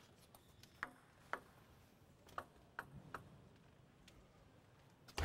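A table tennis ball ticking sharply about five times against the table and bats, in a quiet hall.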